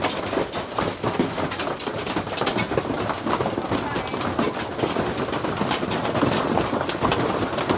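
Hail hammering on the aluminium shell of an Airstream travel trailer: a dense, continuous clatter of many small hits with no let-up.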